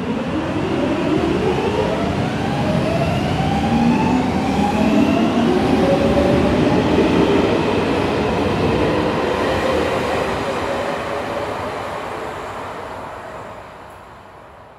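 Metro train accelerating: its electric traction motors give a whine of several tones climbing steadily in pitch over the rumble of the wheels on the rails. It is loudest mid-way, then fades away over the last few seconds as the train draws off.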